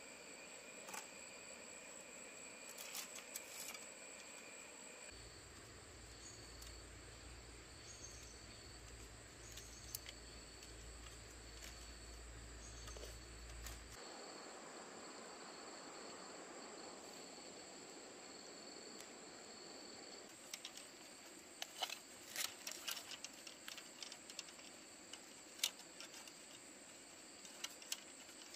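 Steady high-pitched insect chirring, with light clicks and rattles of thin bamboo strips being handled and woven, most of them in the last several seconds.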